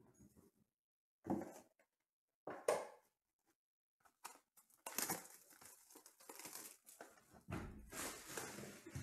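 Two short knocks as a cardboard trading-card box is handled, then about four seconds of tearing and crinkling as its plastic wrapping is torn off and crumpled.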